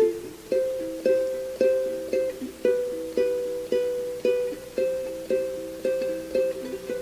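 Instrumental passage of a song: a plucked string instrument picks single notes in an even pattern, about two a second, each note ringing and fading before the next.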